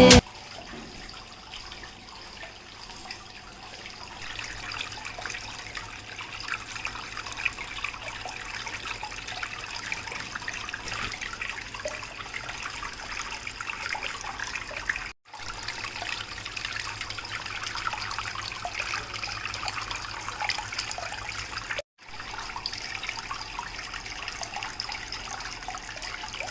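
Water trickling and splashing steadily down a small homemade rock-style garden waterfall fountain, over a faint low hum. The sound cuts out for a split second twice, about halfway through and again about two-thirds through.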